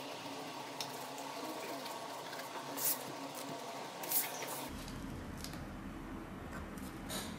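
Faint scratching of a coloured pencil on sketch paper, with a few short, sharper strokes, and the paper sheet shifting on the desk. A low steady hum sets in about two-thirds of the way through.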